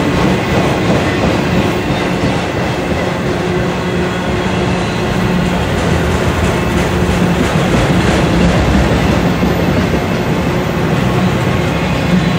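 Autorack freight cars rolling past close by: steel wheels running on the rails, a steady, loud rolling noise with a low hum running through it.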